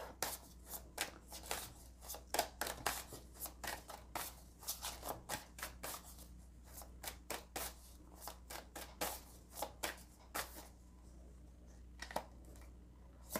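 Tarot cards being shuffled by hand: a quick run of soft card clicks and slides that thins out about ten seconds in, with a few last clicks near the end.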